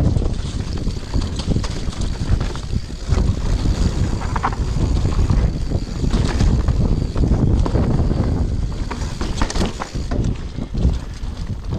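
Mountain bike descending a dirt forest singletrack fast: wind buffets the helmet camera's microphone, and the tyres rumble over the trail with frequent rattles and knocks from the bike over roots and bumps.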